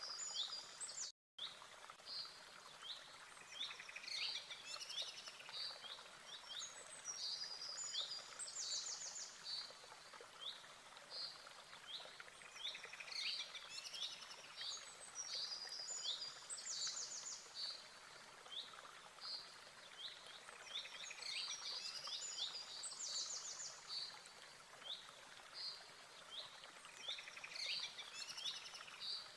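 Birdsong ambience: many small birds chirping and trilling, the same stretch of song coming round about every eight seconds like a loop. A brief dropout about a second in.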